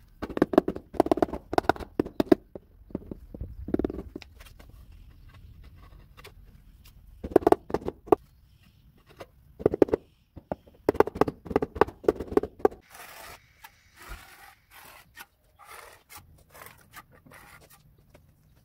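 Freshly laid ceramic floor tiles being tapped down into wet mortar, in quick runs of knocks with pauses between them. Fainter scraping follows.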